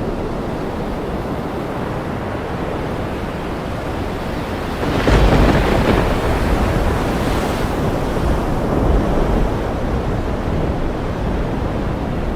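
Steady ocean surf with wind. About five seconds in, a louder surge rises and rolls on for a few seconds before easing back.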